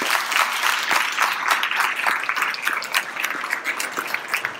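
Audience applauding at the end of a talk: a dense clatter of many hands clapping that thins out a little toward the end.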